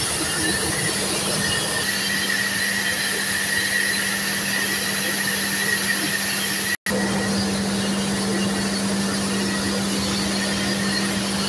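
Steady, loud engine-room din of running marine diesel generators: a constant low hum and a high whine over a wash of machinery noise. It cuts out for an instant about seven seconds in, then carries on unchanged.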